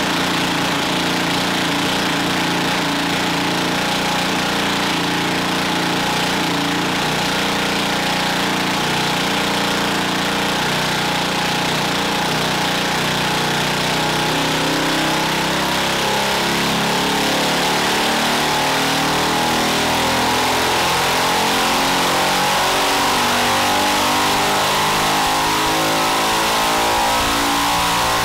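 Predator 212-based 223cc stroker single-cylinder engine with a ported non-hemi head running on a dyno, holding fairly steady revs for the first half, then climbing steadily in pitch through the second half as it is pulled up toward about 7000 rpm.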